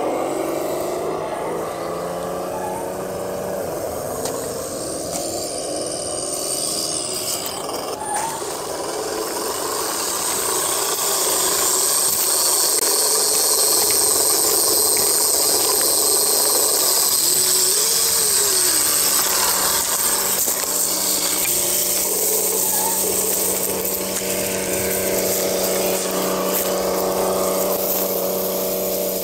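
Electric motor and gearbox of an HG P402 radio-controlled scale truck whining as it drives, the pitch rising and falling with the throttle.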